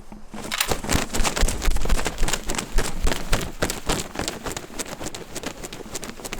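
Footsteps crunching and rustling through dry leaves and brush, a fast dense crackle that starts about half a second in.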